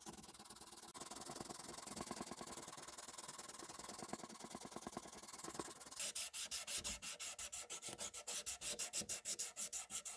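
Rapid back-and-forth abrasive rubbing, like hand sanding or scrubbing a part, at roughly six strokes a second. It becomes louder and sharper about six seconds in.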